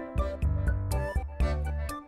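Background music: a light tune over a steady bass line, with short percussive clicks at intervals.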